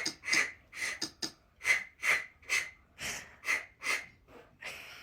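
A dog's rapid, noisy breathing: about a dozen short, rasping breaths, two to three a second.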